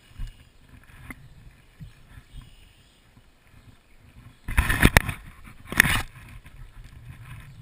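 A hand handling a small action camera mounted on a kayak: a few light knocks, then two loud bursts of rubbing and scraping against the camera body a little past the middle.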